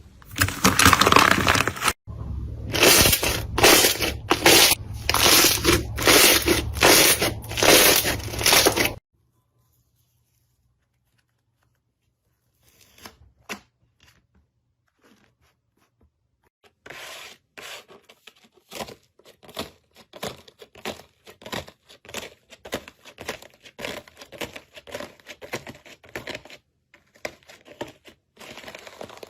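Slime being squeezed, pressed and pulled: about nine seconds of loud squishing and crackling, a break of several seconds, then a quieter run of quick, sharp crackles and pops several times a second.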